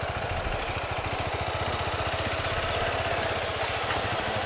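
Bajaj Avenger 220's single-cylinder engine idling with a steady, even beat.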